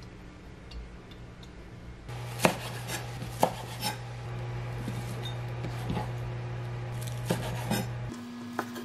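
Chef's knife chopping wild chives on a wooden cutting board: several sharp, irregularly spaced knocks of the blade on the board, starting about two seconds in.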